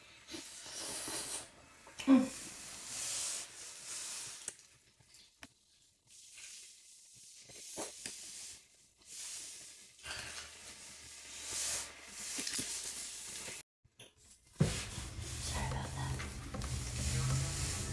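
Close chewing and mouth sounds of someone eating a slice of pizza, in short noisy bursts with brief quiet gaps between them. A low steady hum comes in near the end.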